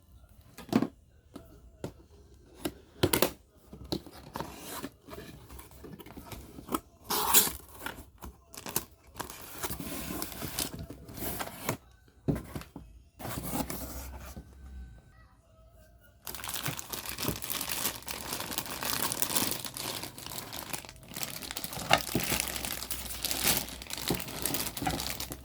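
Toy figure packaging being opened by hand: scattered clicks and rustles at first, then long stretches of tearing and crinkling from about ten seconds in.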